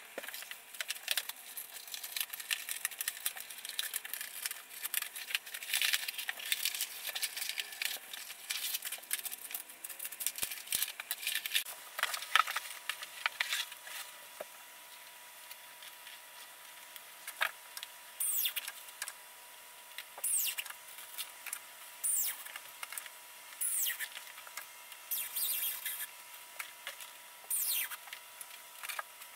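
Handling noise of large cardboard sheets being moved and pressed against a window frame: irregular rustling, tapping and knocking. In the second half come short, high scraping sounds that fall in pitch, one every second or two.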